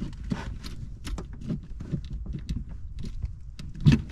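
Scattered light clicks and knocks as an electrical connector at the car battery is worked off by hand, with a louder knock near the end.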